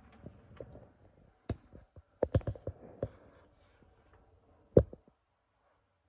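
Sharp plastic clicks and knocks from the detergent dispenser on a Bosch/Siemens dishwasher door being handled. There is one click about a second and a half in, a quick cluster between two and three seconds in, and the loudest single click near the five-second mark.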